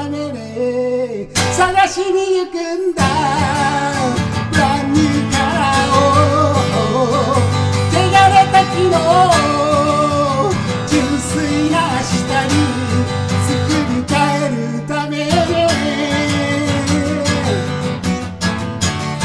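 A man singing to his own strummed Gibson acoustic guitar.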